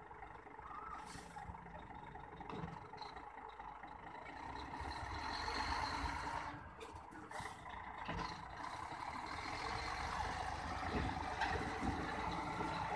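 Heavy Hyundai tractor unit's diesel engine running under load as it hauls a loaded lowboy trailer, getting louder through the second half.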